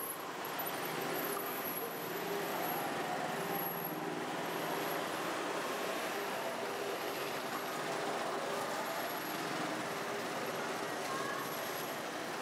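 Steady street traffic noise from motor vehicles running past, an even wash of sound with no distinct knocks or cuts standing out.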